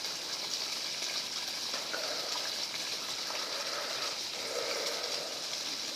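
Water from a sump pump's discharge line gushing steadily out of the outlet pipe as the pump empties the sump.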